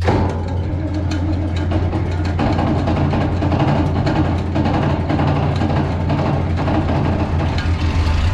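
Farm truck engine starting cold: it catches suddenly right at the start, then keeps running at idle, sounding fuller after about two and a half seconds. The cold engine started on a battery that just had enough charge.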